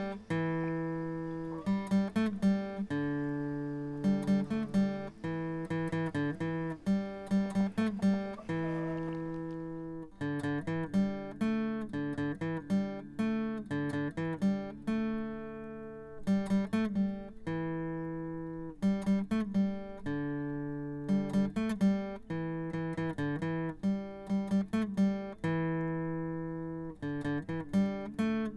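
Background music: plucked acoustic guitar playing a repeating picked pattern of ringing notes.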